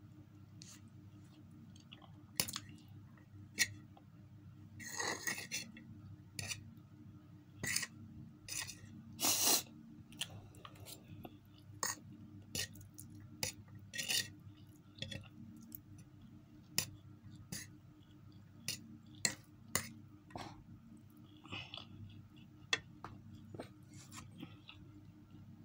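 Close-up eating sounds of a person eating instant noodles: many short wet mouth clicks and smacks while chewing, with two longer slurps of noodles about five and nine seconds in, and a fork tapping on a plate.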